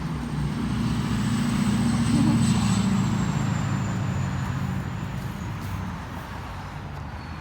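Steady low rumble like a road vehicle running, louder about two seconds in and easing off after, with a faint thin high tone slowly falling in pitch.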